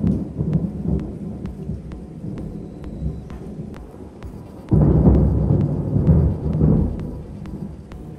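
Thunder rumbling low throughout. About five seconds in, a sudden, louder peal breaks out and rumbles for about two seconds before fading.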